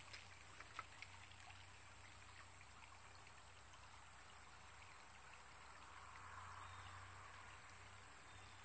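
Faint, steady trickle of a shallow creek running over stones, swelling slightly about six seconds in.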